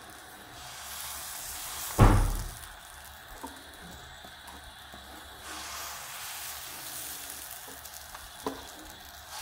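Rava dosa batter sizzling on a hot pan, with one loud sudden thump about two seconds in.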